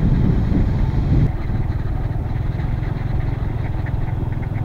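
A motor scooter being ridden. For about the first second, wind buffets the microphone over the engine. It then cuts abruptly to a steady, low engine hum.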